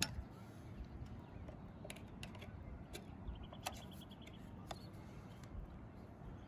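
Faint background with a few light, scattered clicks and a brief faint high chirping about halfway through.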